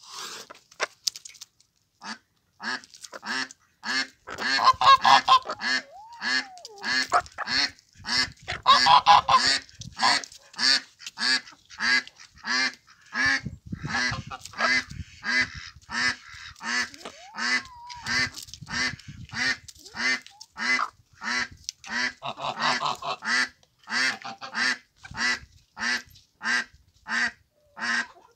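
Domestic fowl calling over and over, short pitched calls at a steady pace of about two a second, with a louder, busier stretch twice in the first ten seconds.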